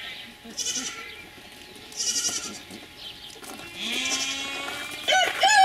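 A young doe goat bleating: a low call about two-thirds of the way in, then a loud, quavering bleat starting near the end. Before that, footsteps crunch on gravel.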